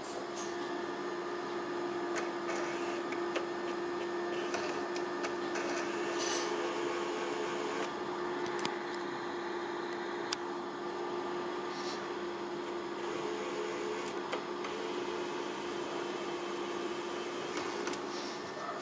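Sony VPL-EX1 LCD projector running, its cooling fan giving a steady whir with a constant hum and a few light clicks. The hum drops away near the end.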